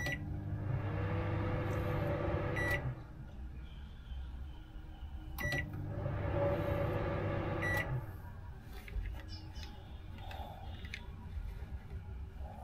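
A 20-litre 1150-watt microwave oven is started twice for short test runs. Each time a beep sounds as it starts, it hums steadily for about two and a half seconds, and another beep sounds as it stops. The brief runs catch its starting current surge, well over 15 amps on start.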